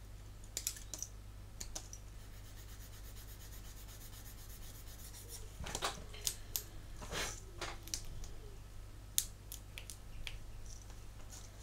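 Sprue cutters snipping small plastic model parts off a kit sprue, with gloved fingers handling the parts: scattered faint sharp clicks and snips with a little rubbing, over a low steady hum.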